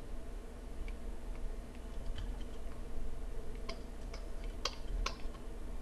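Scattered soft clicks of a computer keyboard and mouse being worked, with two sharper clicks near the end, over a steady low electrical hum.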